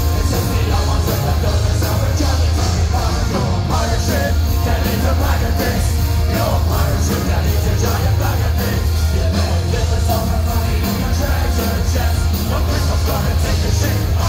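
Heavy metal band playing live at full volume, with a pounding drum beat, heavy bass, guitars and keyboard, heard from within the crowd. Singing and crowd yells sit over the music.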